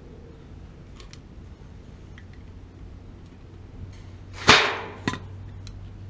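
A metal piece from a cut-up water-heater burner assembly dropped onto concrete, landing with one sharp metallic clatter about four and a half seconds in and a smaller clink half a second later.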